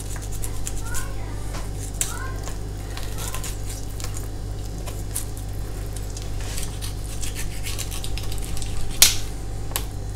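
Filleting knife clicking and scraping along a John Dory's ribs and spines as the fillet is worked off the bone, with a sharper click about nine seconds in.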